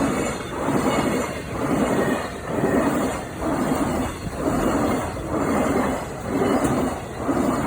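Freight train wagons rolling past: a rhythmic clatter of wheels over the rails, swelling and falling about once a second.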